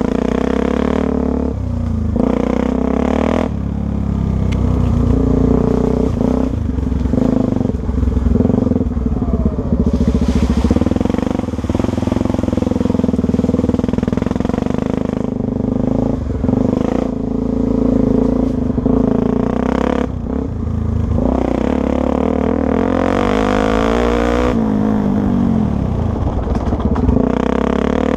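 Honda Tornado 250's single-cylinder four-stroke engine running under way off-road, its revs rising and falling continually as the throttle is worked.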